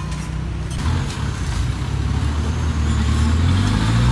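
Road vehicle engine accelerating: a low hum that rises steadily in pitch and grows louder from about a second in, over steady street noise.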